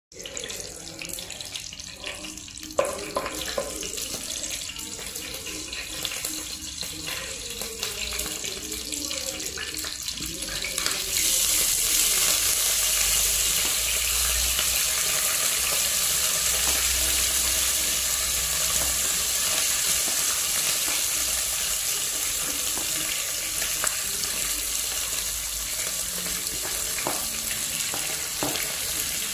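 Hot cooking oil in a non-stick pot, crackling faintly at first. About eleven seconds in, a loud steady sizzle starts as curry leaves, sliced chillies and onions are tipped into the oil, and it eases off slowly toward the end.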